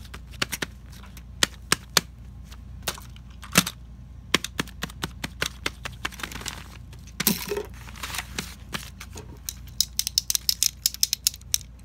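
Irregular sharp clicks and taps of small hard plastic fidget toys being handled and set down on a table, with a short scuff about seven seconds in and a quick run of clicks near the end.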